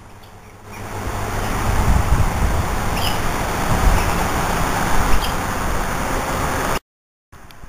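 Outdoor background noise: a steady low rumble with a hiss over it, swelling about a second in and cutting out for half a second near the end.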